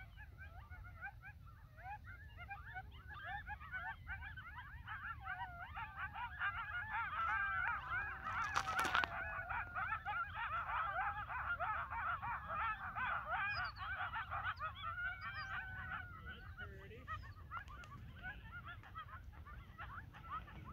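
A pack of coyotes howling and yipping together in a dense, wavering chorus of many overlapping voices. It swells about six seconds in and thins out after about sixteen seconds.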